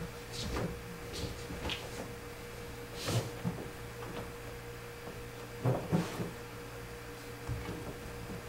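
Kittens scuffling and jumping on a sheet-covered sofa: scattered soft knocks and fabric rustles, the clearest about three seconds in and twice around six seconds in, over a low steady hum.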